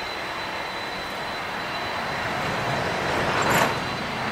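Boeing 747-400F freighter's four turbofan engines at taxi power: a steady rushing noise with a thin high whine. The noise swells and peaks in a brief loud rush about three and a half seconds in, then eases.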